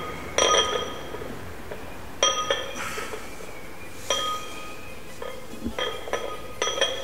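Iron weight plates on a loaded curl bar clinking against each other: several sharp metallic knocks at irregular intervals, each ringing briefly.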